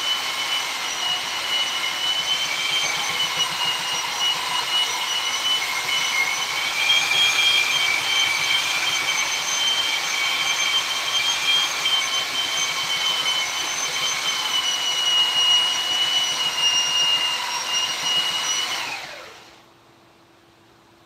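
A high-speed electric power tool running with a steady high whine, then switched off about nineteen seconds in, its pitch falling as it spins down.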